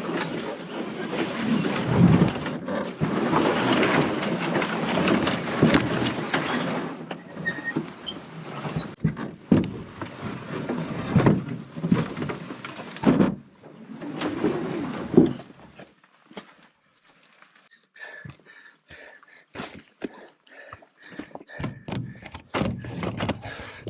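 A person wading through deep bog mud and water while dragging a canoe: heavy sloshing and thudding, dense for the first several seconds, then separate splashes and knocks that thin out after about fifteen seconds.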